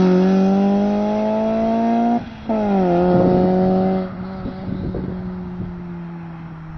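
Honda Accord Type R's four-cylinder engine running under throttle after a burnout, its note broken by a short drop about two seconds in, then falling back and fading steadily after about four seconds as the car moves off.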